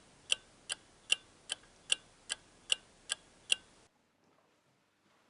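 A clock ticking steadily, about two and a half ticks a second, then stopping abruptly a little under four seconds in.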